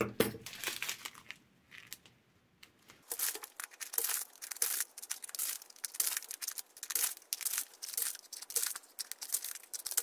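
Small plastic packets of diamond-painting rhinestones crinkling and rustling as they are handled and sorted, in a run of quick crackles with a short pause about two seconds in.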